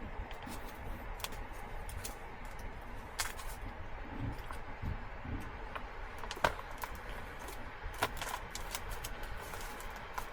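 Pot of food heating up and starting to bubble: irregular small clicks and pops, one sharper pop about six and a half seconds in, over a steady low hum.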